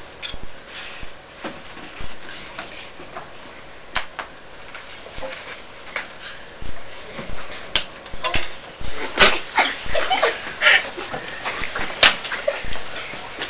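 Children acting out a bear attack with props: scattered sharp knocks and bumps of handling on the floor, with animal-like vocal noises from the children about halfway through and again near the end.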